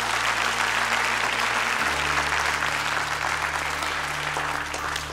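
Theatre audience applauding, dying down a little toward the end, over a low steady music drone.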